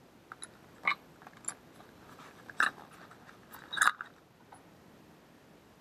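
Hands handling a small paperboard packaging insert and a USB cable: a handful of short crinkles and clicks, the loudest about two and a half and four seconds in.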